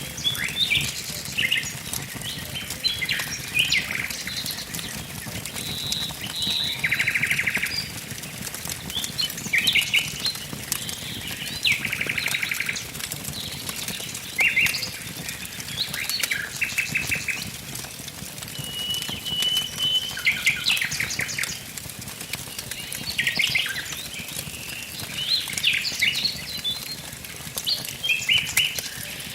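Wood fire crackling steadily with many small pops, while songbirds call all around: short chirps, a few brief buzzy trills, and one high whistled note held a couple of seconds about two-thirds through.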